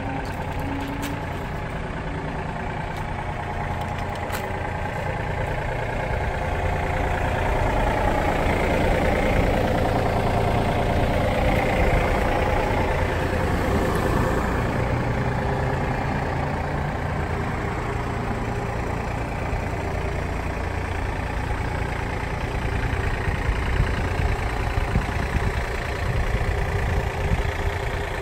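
2018 Yanmar Vio 30-6 mini excavator's diesel engine idling steadily, louder for a while in the middle.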